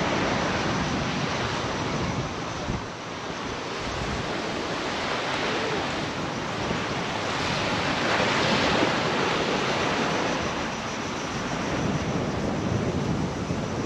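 Sea waves washing onto the shore, with wind buffeting the microphone; the surf swells louder about eight seconds in.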